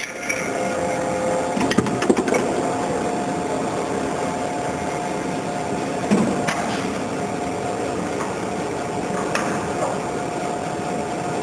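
Centauro Sawflex CNC band saw running, a steady machine hum with a few sharp knocks and clicks, the loudest about two seconds in and about six seconds in.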